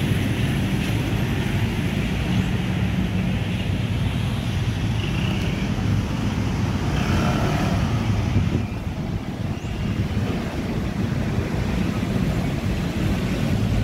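Steady low rumble of motorcycle and car traffic, with wind buffeting the microphone.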